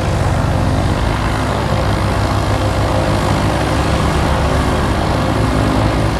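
Propeller airplane engine drone: a steady rushing noise with a fast, low throbbing beat.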